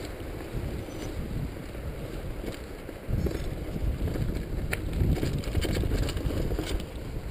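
Mountain bike riding fast down a rough dirt trail: wind buffeting the camera microphone over the rumble of tyres and frame, louder from about three seconds in, with a few sharp clicks and rattles from the bike.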